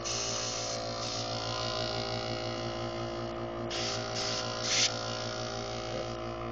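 Steady hum of a small airbrush air compressor running, with short hissing blasts of air from the airbrush: one lasting under a second at the start, then three quick bursts about four seconds in.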